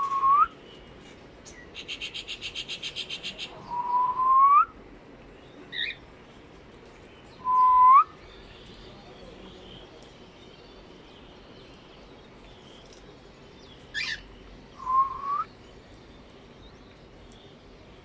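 Cockatiels calling with short whistles that slide upward in pitch, four of them a few seconds apart, the one near the middle loudest. About two seconds in comes a quick run of high chirps, roughly eight a second, and near the end a short sharp call.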